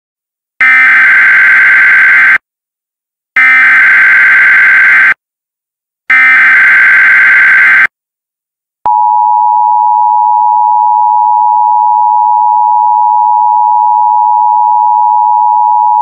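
Emergency Alert System alert tones announcing a severe thunderstorm watch: three bursts of SAME digital header data, each just under two seconds long, then a steady two-tone attention signal that starts about nine seconds in and carries on.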